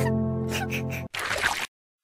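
Background music: a held chord of steady tones that cuts off about a second in, followed by a short noisy sound effect.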